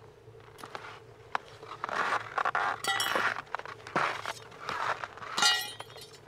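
A series of short clinks and scrapes, several in a row, from gear being handled by a skier standing in the snow.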